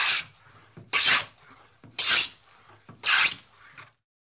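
Hand plane cutting shavings from wood in short hissing strokes, about one a second, four in all, stopping abruptly near the end.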